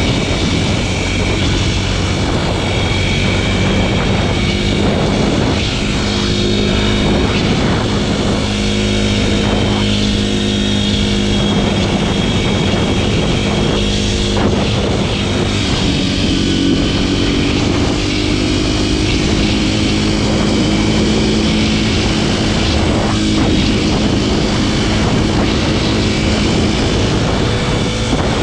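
Kawasaki KLX300SM supermoto's single-cylinder four-stroke engine running at a steady cruise, its pitch shifting a little as the throttle changes, with a brief rise partway through.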